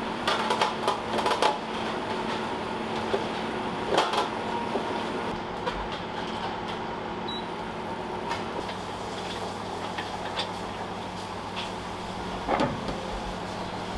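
Restaurant kitchen at work: a steady machine hum with a few sharp clacks and knocks, several in quick succession about a second in, one near four seconds and another near the end.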